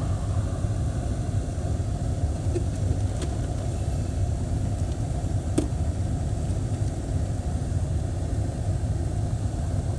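Vehicle engine idling with a steady low rumble, heard from inside the cab, with a couple of faint clicks about three and five and a half seconds in.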